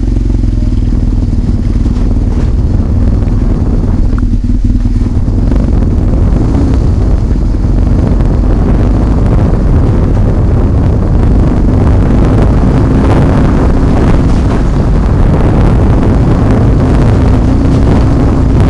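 BMW HP2's 1170 cc boxer-twin engine running steadily, then the bike moves off about five seconds in and rides along a rough dirt track, the engine and wind noise growing louder towards the end.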